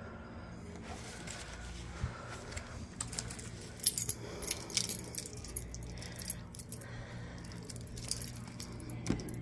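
Keys jangling, a run of small sharp metallic clinks from about four seconds in, over a steady low hum.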